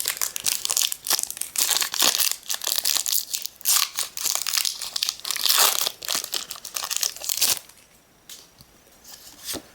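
Pokémon booster pack packaging crinkling and tearing as it is handled and ripped open, a dense run of crackles that stops about seven and a half seconds in.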